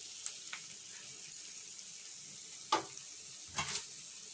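Tomato and dal curry sizzling steadily in a kadai, with a sharp metal clink nearly three seconds in and a couple more shortly after.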